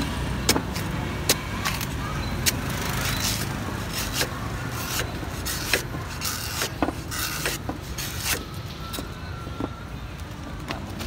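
Cleaver chopping and shaving the husk of a young green coconut on a wooden board: sharp knocks about once a second, unevenly spaced, over a steady low rumble of road traffic.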